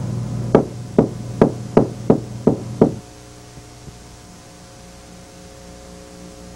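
Seven sharp knocks in a quick, slightly uneven row, a little over two a second, over a low hum. They stop abruptly about three seconds in, leaving only a faint steady background.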